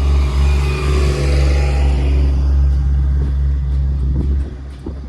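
Engine of heavy paving machinery running with a steady low drone that drops away sharply about four seconds in.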